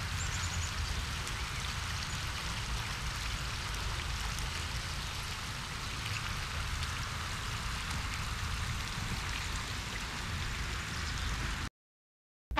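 Steady outdoor rushing noise with a low rumble under it, running evenly and cutting off suddenly near the end.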